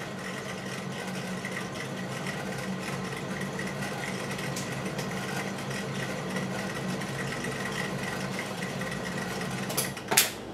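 Small rotary rock tumbler running with a steady mechanical hum. Two sharp knocks come near the end.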